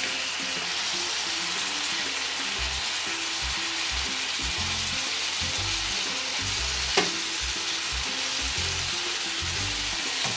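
Chicken strips, onion and bell pepper strips sizzling steadily as they fry in oil in a pan, stirred with a wooden spoon, with a single sharp tap about seven seconds in.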